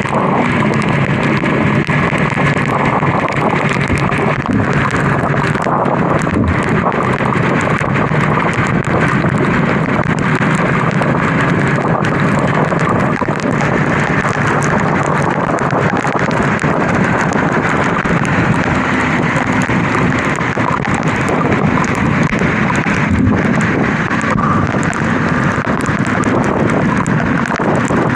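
Kawasaki KLE 250 motorcycle on the move: the engine runs steadily under a loud, constant rush of wind and road noise on the microphone.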